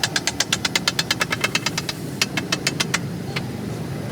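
Rapid, even metal clacking, about seven strikes a second, of a cook's utensil on a cooking surface, thinning out and stopping about three seconds in.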